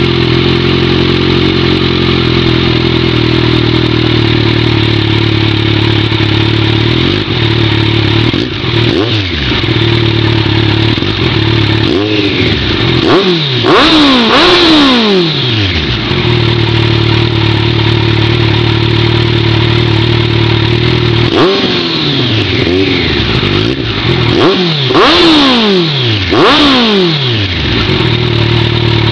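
Kawasaki Z1000's inline-four engine, breathing through a MASS carbon aftermarket exhaust, idling steadily while stationary. It is revved in two spells: a few quick revs a dozen seconds in, and several more after about twenty seconds, each rising sharply and falling back to idle.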